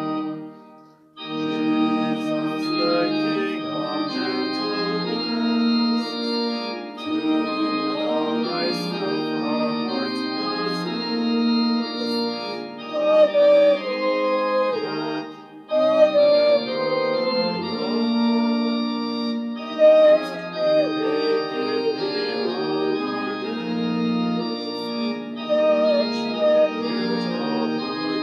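Organ playing a hymn tune in sustained chords, with a woman's voice singing the melody over it. The music breaks off briefly about a second in and pauses shortly between phrases.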